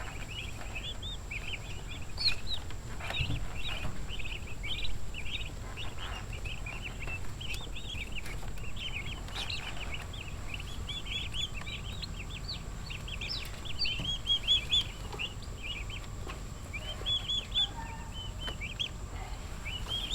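A flock of three-week-old Freedom Ranger broiler chicks peeping without pause: many short, high chirps overlapping one another.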